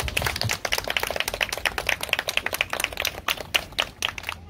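Scattered applause from a small audience: many separate hand claps at an uneven pace that die away near the end.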